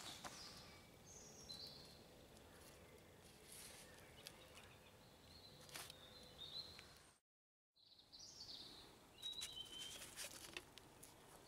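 Near silence: quiet outdoor ambience with a few faint bird chirps and some soft clicks and knocks.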